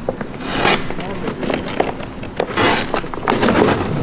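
Vacuum-bagging film and cloth being pulled and peeled off a cured carbon-fibre laminate, crinkling and ripping in repeated bursts.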